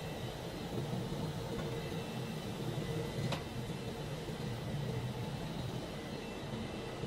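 Factory machinery running steadily, a rumbling hum with a faint whine, with one sharp click about three seconds in.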